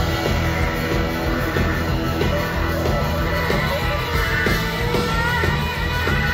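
Live rock band playing an instrumental stretch: electric guitar lines over bass and a steady drum beat.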